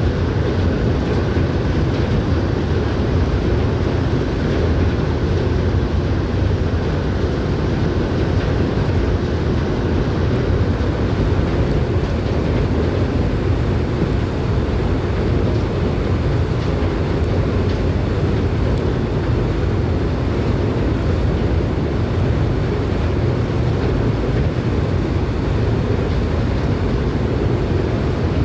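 Steady low rumble of a ferry under way, mixed with wind blowing on the microphone.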